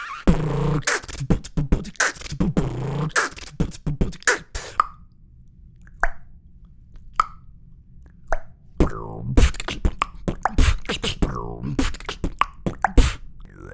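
Vocal beatboxing: a dense mouth-percussion beat, then from about five seconds in a few single clicks about a second apart imitating a ping-pong ball being hit back and forth, then a fuller beat built around that sound.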